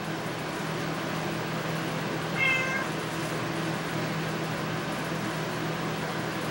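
A house cat meows once, short and high, about two and a half seconds in, over a steady low hum.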